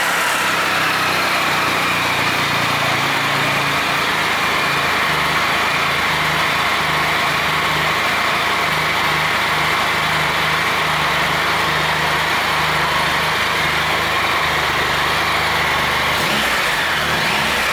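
Triumph Tiger 1200 XCX's inline three-cylinder engine idling steadily through its stock exhaust, freshly started.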